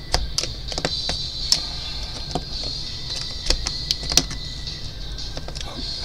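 Utility knife blade shaving small slices off the edge of a switch cutout in a plastic interior trim panel: a string of irregular sharp clicks and scrapes as the plastic is cut away.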